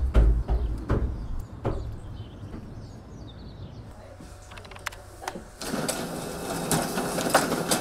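Scattered knocks and clicks, then an office laser printer starts up about five and a half seconds in and runs noisily, feeding out pages with rapid clicking.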